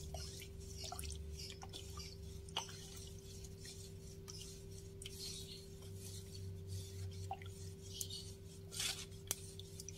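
Wooden spoon stirring a thin rice-flour batter in an aluminium pot: faint scraping and swishing, with a few light knocks of the spoon against the pot. A steady low hum runs underneath.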